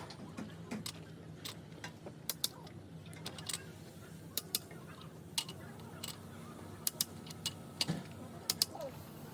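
Irregular sharp metallic clicks and clinks of hand tools and engine parts being handled during engine repair, over a steady low hum.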